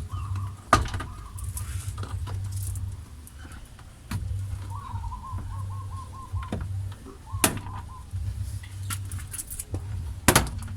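Plastic trim clips of a car's interior door panel snapping loose as the panel is pulled off: a few sharp clicks and snaps, the loudest pair near the end. A warbling chirp is heard faintly in the middle.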